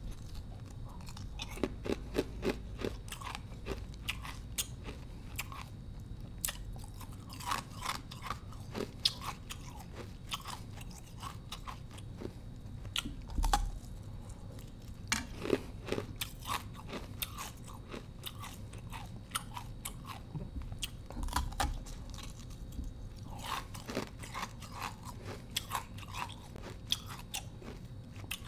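Thin slab of ice being bitten and chewed: many irregular sharp crunches and crackles as the ice breaks between the teeth, a few of them louder than the rest.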